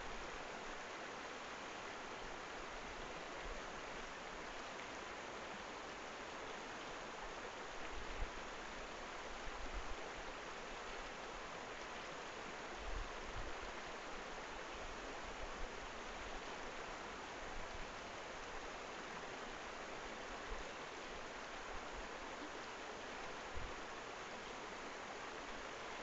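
Shallow, rocky mountain river flowing over stones, a steady rush and babble of water. A few brief low bumps come through now and then.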